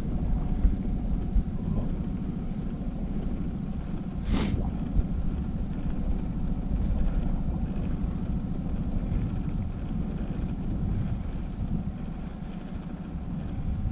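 Honda outboard motor running steadily at trolling speed, mixed with wind buffeting the microphone. About four seconds in there is one brief sharp noise.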